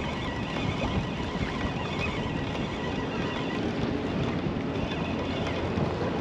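Steady wind rushing over the microphone, with a spinning reel being cranked to wind in fishing line.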